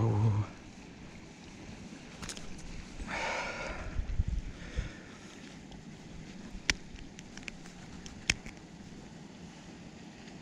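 A freshly landed zander flapping on wet concrete for a moment, then quiet handling of the fish: a brief rustle a few seconds in and two sharp clicks later, over a faint steady outdoor hiss.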